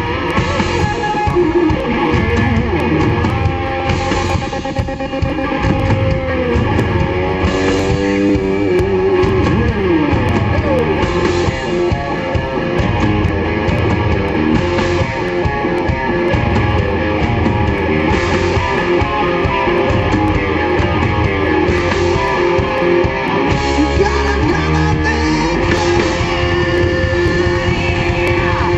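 Rock band playing live: electric guitars over a drum kit, with notes sliding up and down in pitch from about six to ten seconds in.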